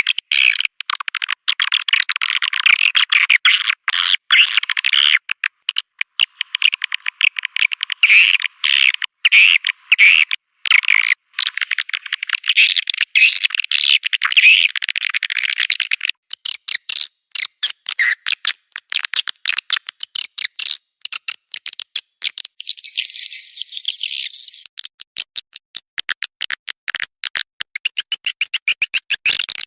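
Swiftlet lure call recording: dense, rapid rattling chirps and twitters of edible-nest swiftlets. About halfway through it switches to sharp, rapid clicking, then to higher, buzzier twittering.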